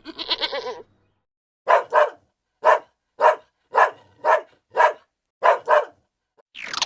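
A dog barking about nine times at an even pace, single barks and a couple of quick doubles. Before the barks, the last part of a pulsing, bleat-like call. Near the end, a loud harsh call sets in.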